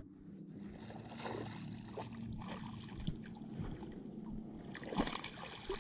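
Steady low hum of a bass boat's electric trolling motor with small scattered clicks. About five seconds in, a short splash as the hooked fish thrashes at the surface beside the boat.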